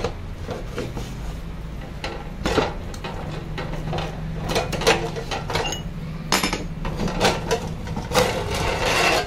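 Irregular metallic clinks and knocks as the steel washer and flange come off the spindle of a Bosch GCO 220 chop saw and its 14-inch abrasive cut-off wheel is slid off the arbor.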